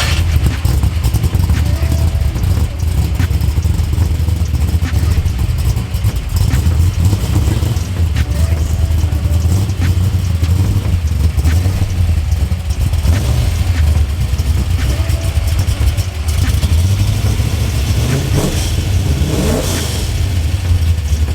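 Fox-body notchback Mustang's V8 idling with a steady, deep rumble.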